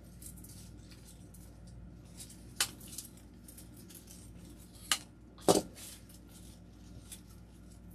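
Artificial greenery stems being handled on a craft table: faint rustling with three sharp clicks, about two and a half, five, and five and a half seconds in, the last the loudest.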